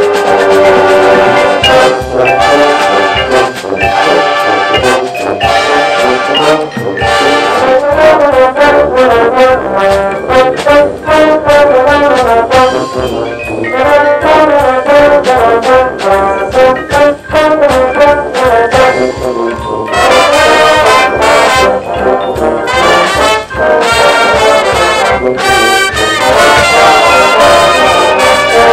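High school marching band playing its field show: the brass section of trombones and trumpets carries the melody over drumline percussion.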